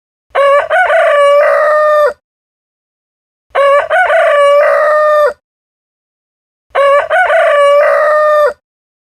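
Rooster crowing cock-a-doodle-doo three times, about one crow every three seconds. Each crow lasts about two seconds, with a quick rising start and then a long held note. The three crows look identical and are separated by dead silence, like one crow looped.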